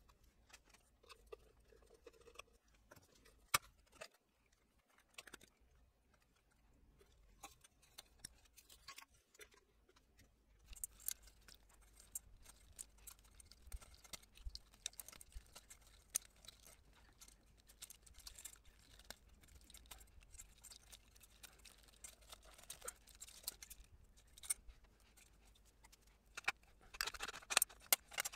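Faint, scattered clicks, taps and light scrapes of hand tools and small metal parts being handled as parts are taken off a motorcycle, busier in the second half, with a denser run of clicks and rattling near the end.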